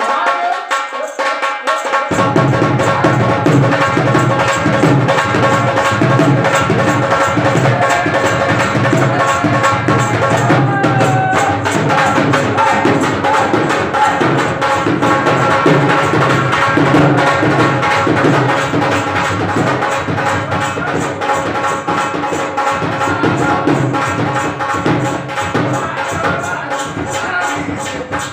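Rajasthani folk dance music with a steady hand-drum rhythm; the drums and low notes come in about two seconds in.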